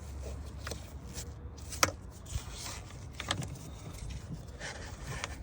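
A few sharp metallic clicks and clinks, the loudest about two seconds in, over a low steady rumble.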